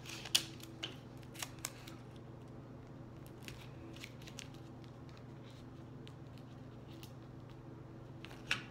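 A paper squishy wrapped in tape being handled and worked in the hands: scattered short crinkles and clicks of the tape and paper, most in the first couple of seconds and again about halfway and near the end, over a steady low hum.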